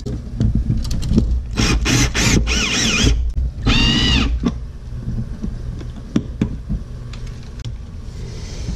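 Cordless drill-driver whining in three short bursts as it drives the screws that fasten electrical outlets into a plastic wall box. The middle burst wavers in pitch and the last is a steady whine. After that come scattered clicks and knocks of handling.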